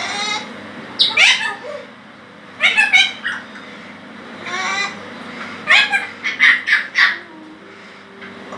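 Illiger's macaw (blue-winged macaw) screeching in a series of loud, harsh calls that come in bursts every second or two: its shouting at the TV.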